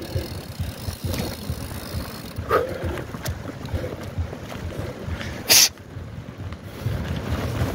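Rumbling wind buffeting the microphone, with scattered light knocks and one short, sharp hiss about five and a half seconds in.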